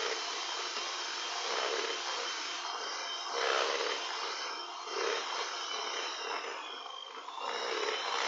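Electric hand mixer running steadily, its beaters whisking thick cake batter in a glass bowl. The sound swells louder roughly every second and a half.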